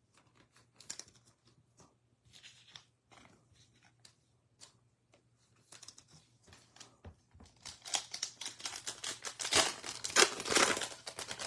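Faint rustling, then from about eight seconds in a foil trading-card pack wrapper being torn open and crinkled, loud and crackly.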